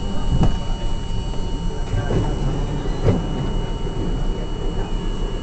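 Inside an R42 subway car: a steady low rumble with a few knocks, about a second apart near the start, and a faint steady high whine.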